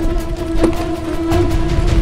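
Background music with a steady held note.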